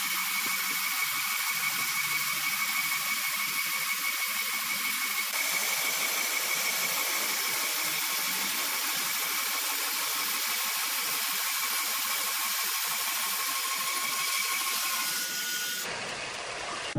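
Horizontal band sawmill cutting lengthwise through a green ironwood log: a steady high whine and hiss of the blade in the wood, with two even whistling tones. The sound changes and breaks off about a second before the end.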